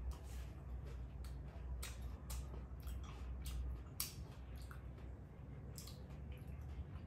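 Chewing a bite of Feastables chocolate with puffed rice: faint, irregular small clicks and crackles from the mouth over a low steady hum.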